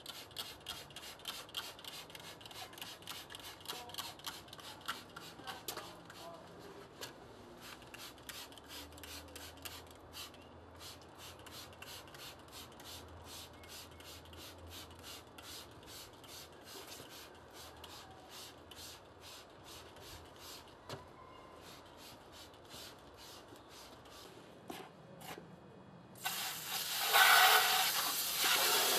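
Trigger spray bottle of detergent squirted over and over, about three squirts a second. About 26 seconds in, a garden hose nozzle starts spraying water onto the motorcycle, much louder and steady.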